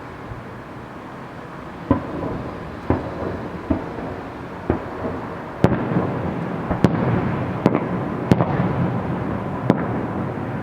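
Fireworks salute: aerial shells bursting one after another, about nine sharp bangs roughly a second apart starting about two seconds in, over a continuous rumble.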